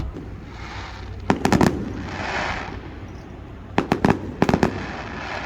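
Aerial fireworks going off: a quick cluster of sharp bangs about a second and a half in and another cluster about four seconds in, with a hissing crackle between them.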